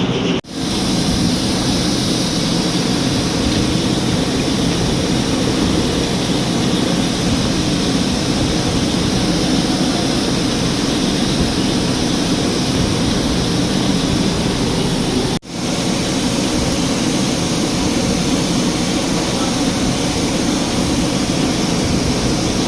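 Ford Ranger 2.2-litre diesel engine running, a steady dense noise, cut off briefly twice.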